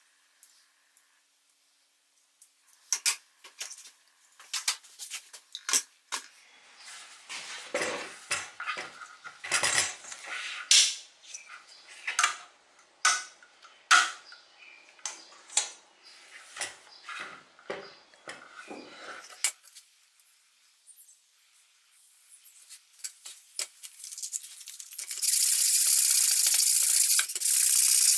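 A run of sharp clicks and knocks as small metal parts and tools are handled on a workbench. Near the end comes steady hand sanding: sandpaper on a sanding block rasping back and forth over the wooden knife block.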